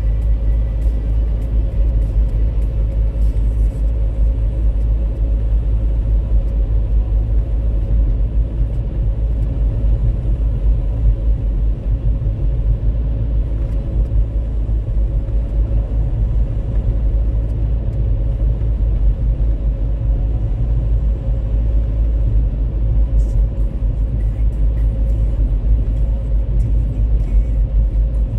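A car driving at a steady speed, heard from inside the cabin: an even, low rumble of engine and tyres on the road, with a faint steady hum above it.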